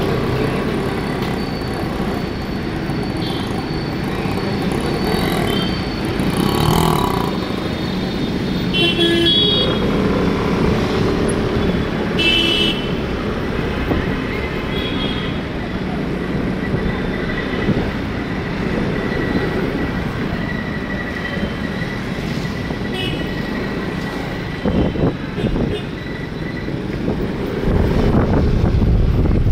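Busy road traffic with engines running and a steady noise, broken by short horn toots from several vehicles every few seconds. A heavier low rumble near the end, as a vehicle passes close.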